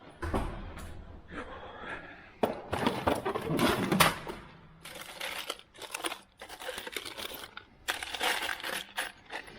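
Hands rummaging through packaging and loose hardware in search of a screw: irregular crinkling and rustling with small clicks.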